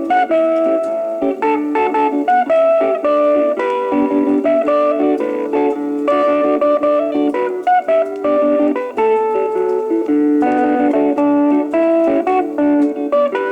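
Instrumental electric-guitar solo playing a Japanese popular-song melody with accompaniment, played back from an early-1960s flexi-disc record. The sound is thin, with little deep bass or high treble.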